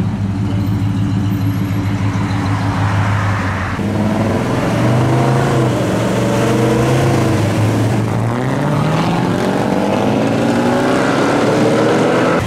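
A classic car's engine running at low, steady revs as it rolls past. Then, from about four seconds in, a Chevrolet Nova's engine pulls away, holding its pitch for a few seconds before rising steadily as the car accelerates.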